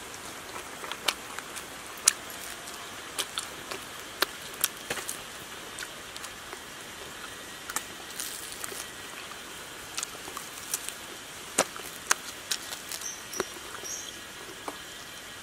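Close-up eating sounds of roasted frog: small wet mouth smacks and sharp crunches of chewing, and the crisp meat being picked apart by hand, coming irregularly a few times a second, over a faint steady hiss.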